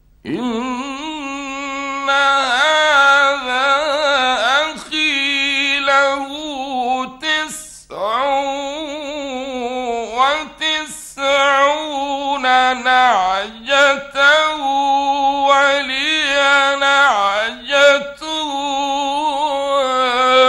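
A man reciting the Quran in the melodic mujawwad style, drawing out long notes with wavering ornaments and bending pitch, with brief pauses between phrases. It is an old radio recording.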